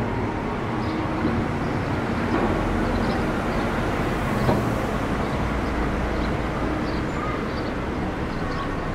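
Steady city street traffic noise, a continuous low rumble of motor vehicles running past.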